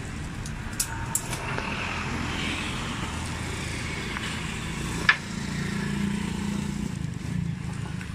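Steady road traffic rumble, with an engine note swelling a little past the middle and a few sharp knocks of wooden planks being handled.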